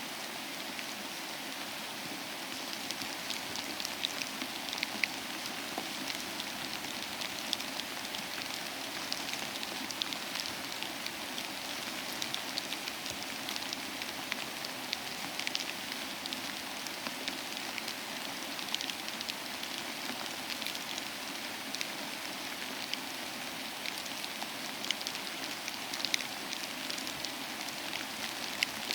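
Steady rain falling, a constant hiss with many sharp, separate drop ticks scattered through it.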